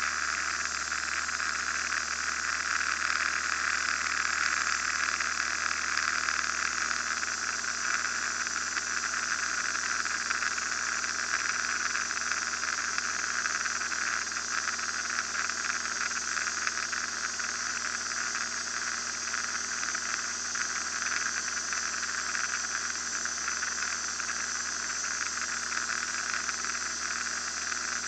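Steady cabin noise of a Van's RV-9A light aircraft in cruise flight: engine, propeller and airflow blend into an even hiss with a faint low hum underneath.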